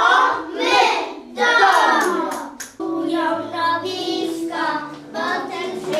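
Young children's voices in unison, then, about three seconds in, a children's song with music and held notes over a steady bass line.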